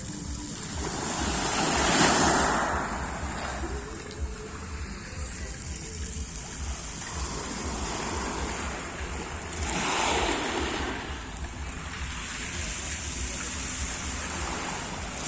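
Black Sea surf: waves washing onto the shore in a steady wash, swelling into louder breakers about two seconds in and again about ten seconds in, with wind rumbling on the microphone.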